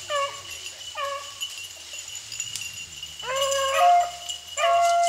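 Beagles baying: a couple of short bays early, then longer drawn-out bays in the last two seconds.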